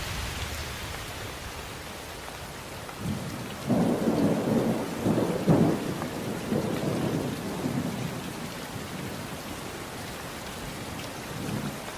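Steady rain with a roll of thunder rumbling in about three seconds in, peaking a little past the middle and fading away, and a smaller rumble near the end.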